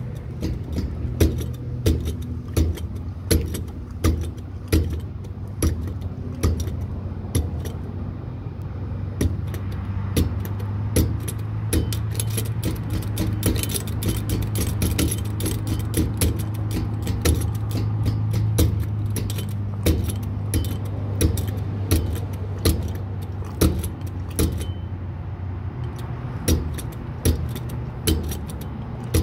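A vehicle driving, with a steady low engine and road drone. Loose metal jingles and clicks irregularly over it, many times throughout.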